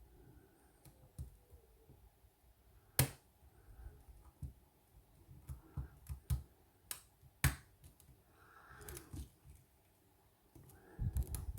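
Scattered sharp clicks of a lock pick working the pins of a seven-pin Scandinavian oval pin-tumbler lock under tension, the loudest about three seconds in and a cluster between six and seven and a half seconds, with faint handling noise between.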